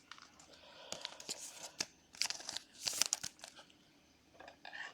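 Trading cards and their plastic sleeves being handled: faint crinkling and light clicks in two stretches, one starting about a second in and a shorter one near the end.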